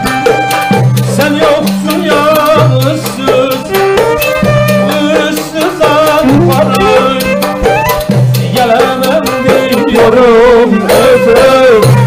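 Live Turkish folk ensemble playing, led by a wooden end-blown flute with bağlama, frame drum, darbuka and violin, over a steady rhythm.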